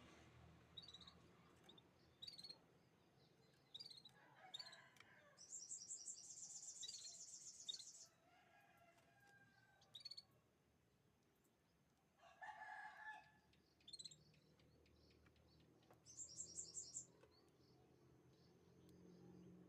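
Canaries chirping faintly: scattered short, high chirps, with a fast high trill about two seconds long starting around five seconds in and a shorter trill later. A lower, coarser bird call sounds twice in between.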